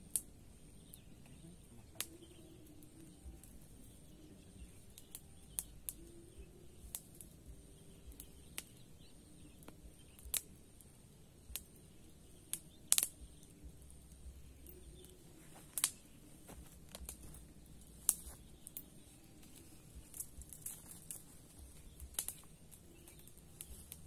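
Irregular sharp clicks and snaps, scattered a few at a time, with the loudest about halfway through, over a faint steady high-pitched tone and a low rumble.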